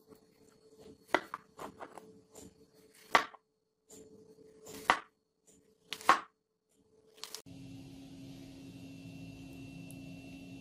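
A restored antique butcher's knife slicing an apple on a tabletop: a series of sharp chops as the blade cuts through the fruit to the board, about half a dozen in seven seconds. The chops then stop and a steady hum takes over.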